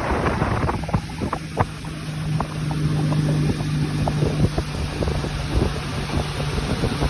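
Motorboat engine running with a steady low hum, with wind buffeting the microphone and frequent short knocks.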